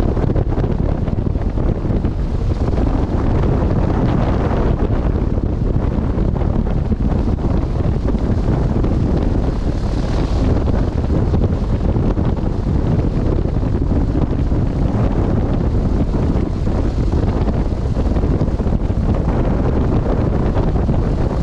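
Piper Pawnee tow plane's piston engine and propeller running steadily on the ground, heavy with wind buffeting on the microphone.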